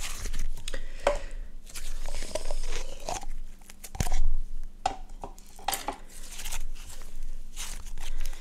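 Slime being squeezed and kneaded in the hands close to the microphone: irregular squishes and crackling pops, with one louder pop about four seconds in.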